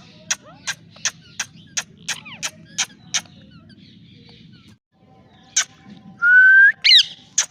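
Ringneck parakeets calling: a rapid run of short, sharp shrieks, about three a second, then a pause. One more shriek follows, then a long, slightly rising whistled note, the loudest sound here, and a couple of short calls near the end.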